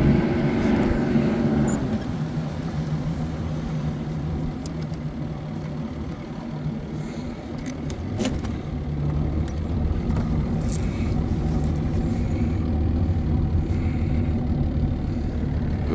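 Bass boat's outboard motor running steadily as the boat cruises, a low even hum under a rush of wind and water noise.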